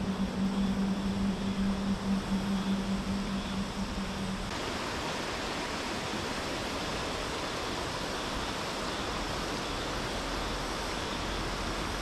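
Steady rush of river water running over rocks through a gorge. A low steady hum sits under it for the first four seconds or so, then stops abruptly.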